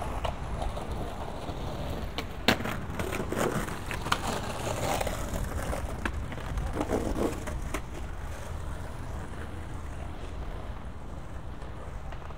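Downtown street noise: a steady low rumble of passing traffic, with a handful of sharp clacks and knocks, the loudest about two and a half seconds in.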